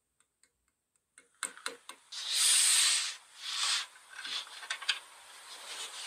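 Pink plastic-bag slime being worked with a spoon in a steel bowl, its plastic film crinkling and rustling in bursts after a few small clicks; the loudest burst comes about two seconds in.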